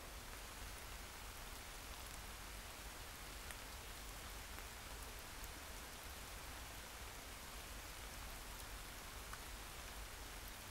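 Light rain falling on still water, a steady hiss with scattered ticks of single drops, over a low rumble.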